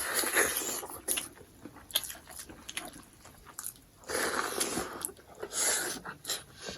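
Close-up eating sounds: biting and wet chewing, with many sharp clicks. There are two longer noisy stretches, one at the start and one about four seconds in.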